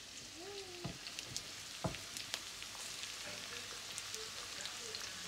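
Chopped onions sizzling in oil in a non-stick wok: a steady hiss with many small crackles. Two sharp knocks come about one and two seconds in, the second the loudest.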